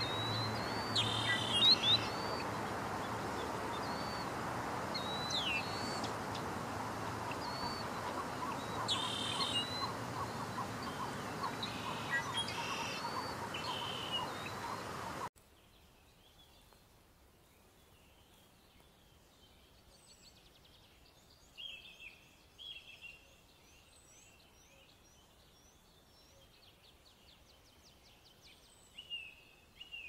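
Outdoor wetland ambience: several birds calling in short chirps and whistled notes over a steady background hiss. About halfway through it cuts to a much quieter recording with only faint, high songbird calls.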